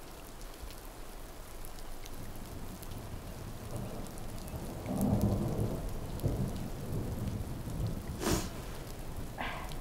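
Steady rain, with a low rumble of thunder swelling about halfway through and fading away.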